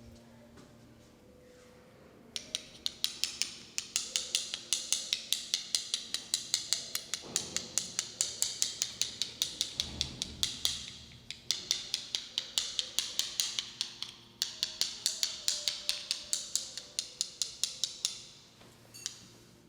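Rapid rhythmic clicking strikes, about five a second, with a crisp hiss on each, in three long runs broken by short pauses.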